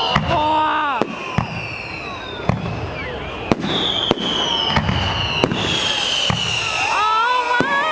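Fireworks display: repeated sharp bangs and pops, with several long whistling tones sliding slowly down in pitch.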